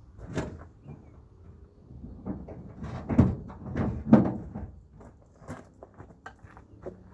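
Irregular knocks and clunks, the two loudest a little over three and about four seconds in, from a tire-plug insertion tool being pushed and twisted back and forth into the puncture in a tire.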